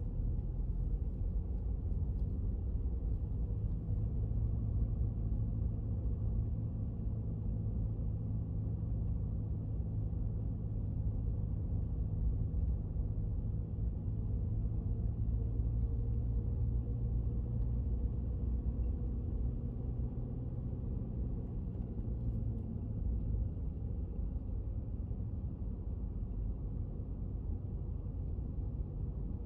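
Steady low rumble of a car driving, engine and tyre noise heard from inside the car, with no sudden events.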